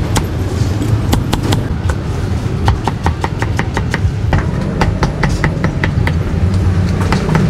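Cleaver chopping roast pork on a thick round wooden chopping block: a run of sharp knocks, coming in quick bursts of about three or four a second in the middle. A steady low rumble of street traffic runs underneath.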